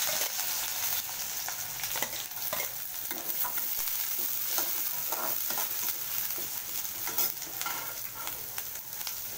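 Sliced onions sizzling as they fry in hot oil in a metal kadai, stirred with a perforated metal ladle that scrapes and taps against the pan again and again.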